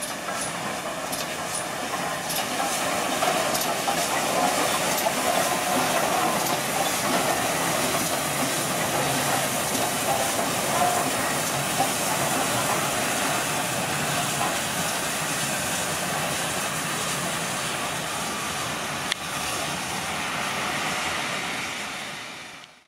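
LNER A3 Pacific steam locomotive Flying Scotsman rolling slowly into the station with its train: a steady hiss of steam over the rumble of wheels and coaches, with light ticking in the first second or two. The sound fades out at the very end.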